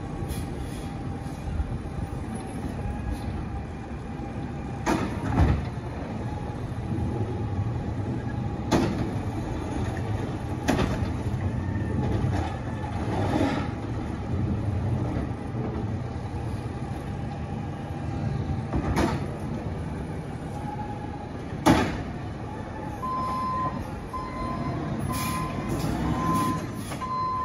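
Garbage truck's diesel engine running and revving as it works, with several loud sharp bangs spread through. Near the end a reversing alarm beeps steadily as the truck moves.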